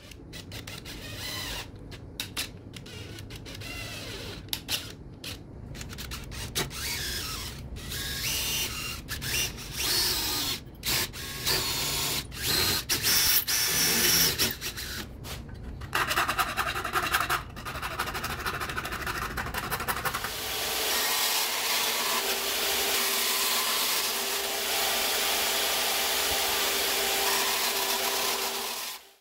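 Stop-start tool noise for the first two-thirds, then a band saw running steadily with a low hum as it cuts a copper sheet, until it stops near the end.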